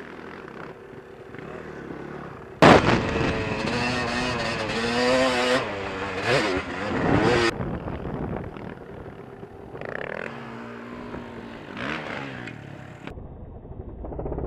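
Dirt bike engine running, then suddenly much louder about three seconds in, revving up and down for several seconds before easing to softer, wavering revs.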